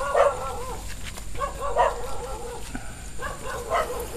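Dogs barking repeatedly in a run of short, high barks.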